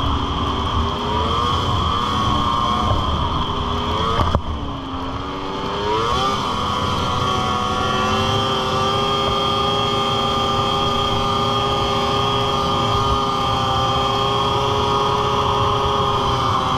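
Yamaha SXR 600 two-stroke triple snowmobile engine running at speed, its pitch climbing as it accelerates. About four seconds in it drops off sharply with a knock, then climbs again and holds a steady high pitch.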